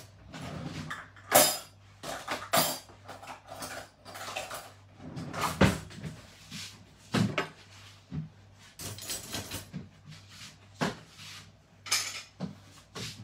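Irregular kitchen clatter while cooking: a dozen or so sharp knocks and clinks of pots, dishes and utensils being handled, the loudest about a second and a half in and again about five and a half seconds in.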